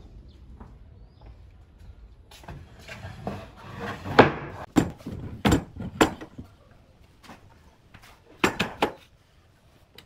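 Wooden boards being laid onto metal pipe clamps on a tabletop, knocking and clattering: a few sharp knocks about halfway through and another quick cluster near the end.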